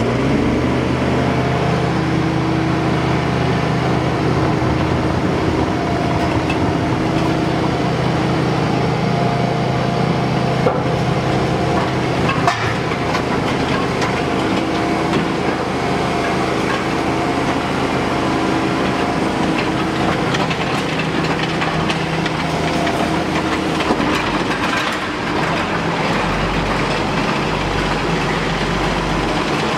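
Compact excavator engine running steadily as the machine tracks off a trailer and across a concrete floor, with two sharp metal clanks about ten and twelve seconds in.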